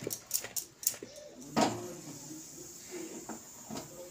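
Clay handi pot being shaken on a gas stove burner, clattering and knocking against the burner grate in a quick run of sharp knocks, then one louder knock about one and a half seconds in and a few faint ticks after. The pot is being jolted so the chicken inside does not stick to the bottom.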